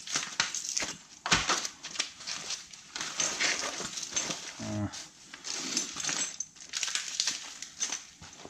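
Tools of a tire plug repair kit being packed back into their case: small metal tools clinking and knocking against each other, with rustling. There is a brief grunt-like vocal sound about halfway through.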